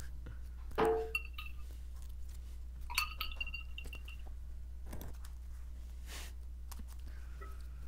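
Faint taps and two short ringing clinks, about a second in and about three seconds in, over a steady low electrical hum.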